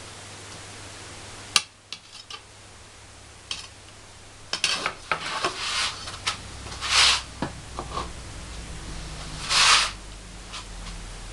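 Spoon spreading tomato sauce over pizza dough in a round metal pizza pan: a sharp clink about a second and a half in, then short scraping and rubbing strokes, with two longer, louder scrapes in the middle and near the end.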